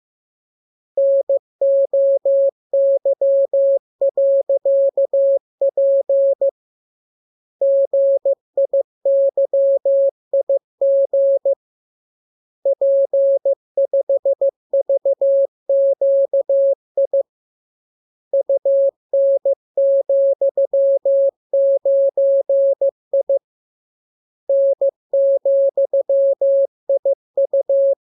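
Morse code: a single steady beep keyed on and off in dots and dashes. It comes in runs of about five seconds separated by pauses of about a second. This is a practice radiogram of the lesson's letters and signs, sent for copying by ear.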